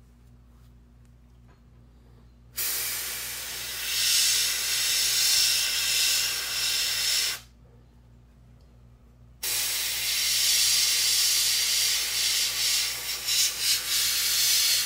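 Airbrush spraying white paint through a stencil: two hisses of about five seconds each, two seconds apart, the second wavering in strength near the end.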